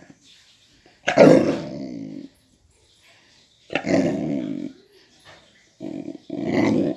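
Puppy growling in four drawn-out bursts with short gaps between them; the first is the longest, about a second.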